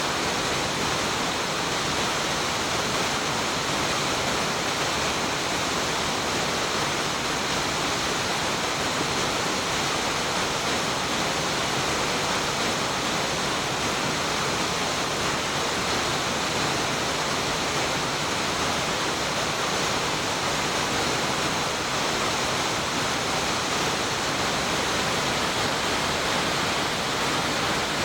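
Steady rushing of Choshi Otaki, a broad, full-flowing waterfall on the main channel of the Oirase Stream, pouring over a ledge.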